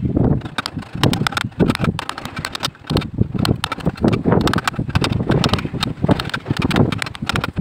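A wooden knife handle clamped in a steel vise is shaped with a hand file: rapid, uneven rasping strokes of steel on wood.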